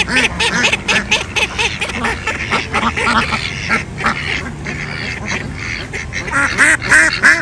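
A group of ducks, mallards among them, quacking repeatedly with many short calls overlapping, building to a fast run of loud quacks near the end.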